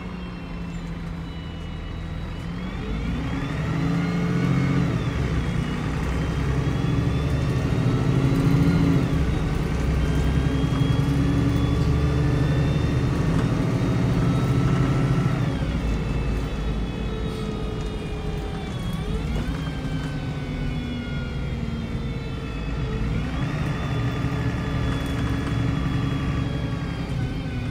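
Retrofitted Cummins diesel engine of an MAN 18.240 single-deck bus, heard from inside the saloon, pulling the bus along and changing gear. The engine note and a whine climb and drop back several times.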